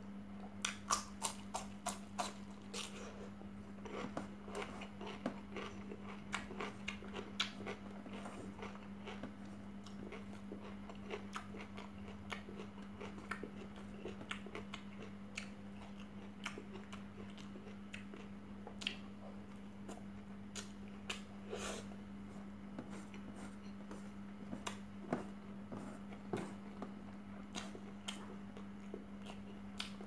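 A person eating close to the microphone: crisp crunching as a cucumber slice is bitten in the first few seconds, then scattered chewing and mouth clicks over a steady low hum.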